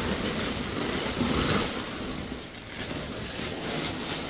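Rustling and crinkling of an insulated flex duct's plastic-foil outer jacket as it is handled and pushed up into the ceiling.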